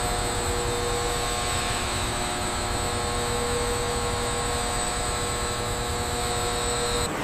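Steady mechanical drone with several high, constant whining tones over a rushing noise, cutting off abruptly near the end.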